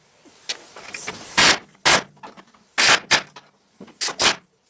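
Pneumatic air chisel cutting through a truck's sheet-steel floor pan in short bursts, about seven of them, each a harsh metallic rattle lasting a fraction of a second.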